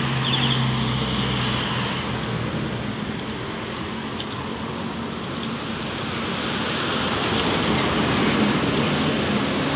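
Highway traffic passing: engine and tyre noise from cars, buses and trucks, swelling again in the last few seconds as a large truck goes by close.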